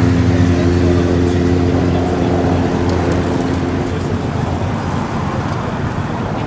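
Police escort motorcycles riding past at steady engine revs, their hum fading away about three to four seconds in, leaving general street traffic noise.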